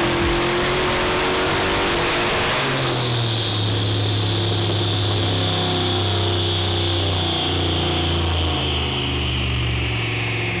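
Turbocharged 6-litre LS V8 in a Chevy Tahoe running on a chassis dyno. Its loud full-power run ends abruptly about three seconds in, then a high whine falls slowly in pitch as the engine and dyno wind down.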